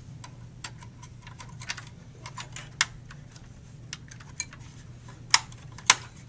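Small plastic clicks and taps as a heatsink retention clip and fan shroud are snapped into place inside a desktop computer case, with three sharper snaps, one about three seconds in and two close together near the end.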